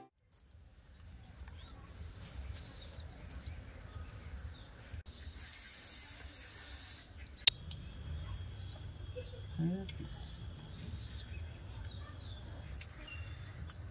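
Outdoor ambience: a low steady rumble with scattered bird chirps. A brief hiss comes about six seconds in, and a single sharp click, the loudest sound, comes about halfway through.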